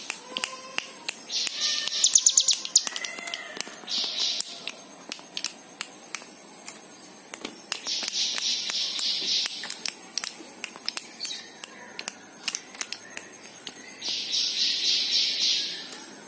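Cigun (hill prinia) giving rapid, buzzy high trills, four bursts of about half a second to a second and a half each, with many sharp ticks in between.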